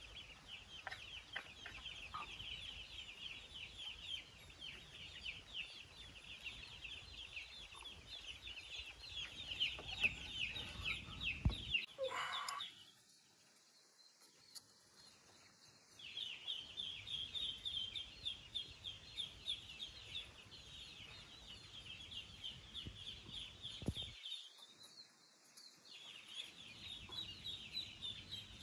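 Steady, dense high-pitched chirping, as of many small birds or chicks peeping together. About twelve seconds in a louder rising call cuts across it, and the chirping drops out for a few seconds, and again briefly later.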